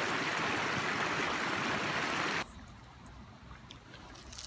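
Creek water rushing over rocks as a steady hiss that cuts off abruptly about two and a half seconds in, leaving a faint quiet with a few small clicks.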